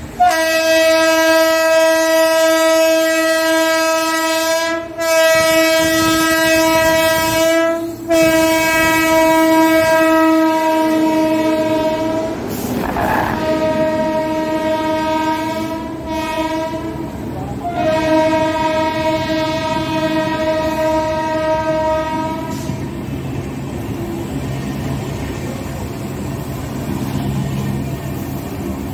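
Electric locomotive's horn blown in long blasts of several seconds each, with short breaks between them, for about the first twenty-two seconds; it drops slightly in pitch about thirteen seconds in as the locomotive passes. After that, the passenger coaches rumble and clatter past close by.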